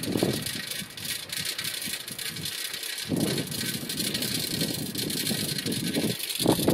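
Bicycle tyres rolling over the wooden plank deck of a bridge: a steady rolling noise with rapid faint ticks, quieter between about one and three seconds in.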